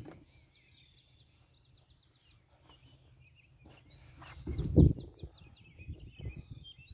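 Songbirds singing, with quick runs of short high chirps and trills, over a faint steady low hum. Just under five seconds in there is a brief low rumble, the loudest sound, followed by a few softer low knocks.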